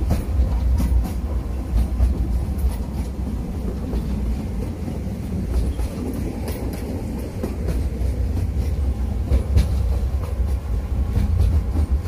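Narrow-gauge park train running along the track, heard from on board: a steady low rumble with irregular clicks of the wheels over the rail joints.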